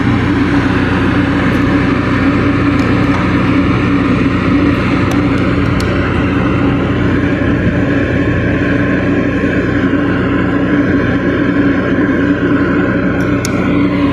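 New Carrier rooftop packaged AC unit running under load, its compressor and outdoor condenser fan making a loud, steady hum, with a few light clicks.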